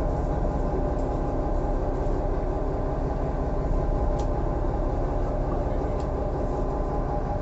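Fishing boat's engine-driven deck winch running with a steady drone as a rope is wound around its turning drum to haul in the net line; a few faint clicks.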